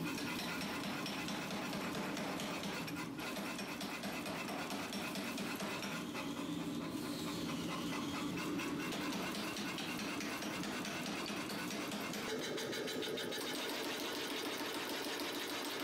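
Power hammer running, its ram striking a red-hot steel axe head held in tongs in a rapid, steady rhythm of blows as the new cutting edge is forged.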